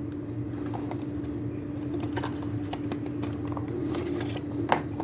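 Scattered light clicks and rustles of paper and packaging being handled as a microphone's instruction booklet and box contents are taken out, with a sharper click near the end. A steady low hum runs under them.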